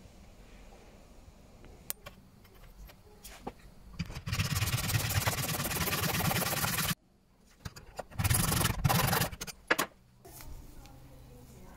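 Hand saw cutting through a brass rod held in an aluminium mitre box, with rapid rasping strokes. One run of sawing lasts about three seconds and cuts off abruptly, and a shorter run follows about a second later.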